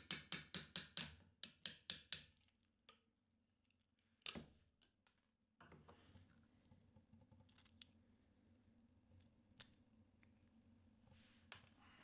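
Rapid hammer taps, about five a second, on a steel rod through a plastic mould held in a vise, knocking the mould apart to free the cured forged-carbon part. The taps stop after about two seconds. A few single clicks and one sharper knock follow as the plastic mould pieces are handled.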